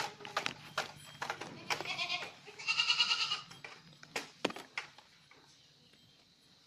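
Osmanabadi goats bleating: a short wavering bleat about two seconds in, then a louder, longer one around three seconds, amid scattered sharp clicks and knocks that die away in the last couple of seconds.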